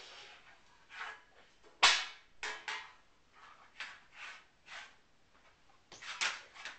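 A series of irregular knocks and short scraping clatters, as of objects being handled and struck. The loudest is a sharp knock about two seconds in, with a busier cluster near the end.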